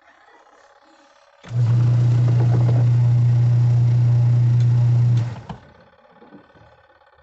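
Washing machine motor switched on and running for about four seconds with a loud, steady low hum, then cut off abruptly.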